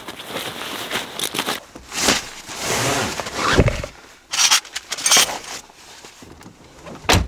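Packed nylon tent bag and camping gear being handled and loaded into a car's cargo area: rustling and scraping, with a heavy thud about three and a half seconds in and another knock near the end.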